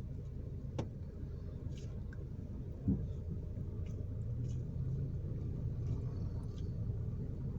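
Steady low rumble of a car's cabin while driving, with a sharp click about a second in and a short low thump near three seconds.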